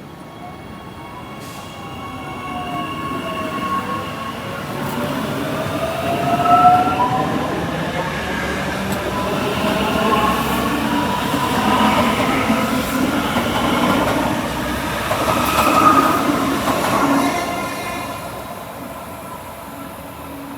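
Queensland Rail SMU electric multiple unit pulling away from the platform. Its traction motors whine and rise in pitch as it accelerates, over growing wheel and rail noise that peaks twice as the carriages pass, then fades near the end.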